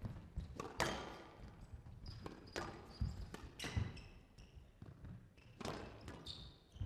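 Squash rally on a glass court: the ball cracking off rackets and walls about five times, roughly once every second or so, with short high squeaks from players' shoes on the court floor between the hits.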